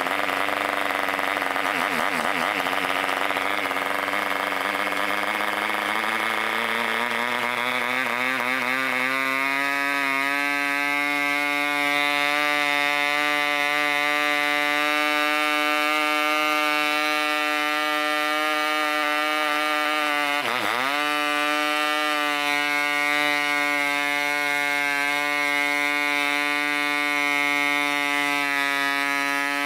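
A 3.5cc Mikro Std two-stroke model diesel engine running on a 10x6 propeller while its compression is adjusted by hand. It runs rough at first, speeding up over the first several seconds, from about 5,700 to about 8,700 rpm on the tachometer, then settles into a clean, steady high-pitched run. About two-thirds of the way through, the speed dips sharply for a moment and recovers.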